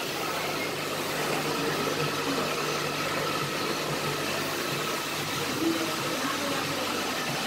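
Steady whooshing air noise with a low hum underneath, holding level throughout.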